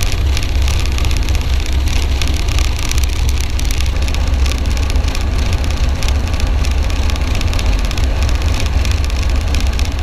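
Military helicopter's rotor and engine running steadily and loudly, a deep low drone under a dense, rapid beat from the blades.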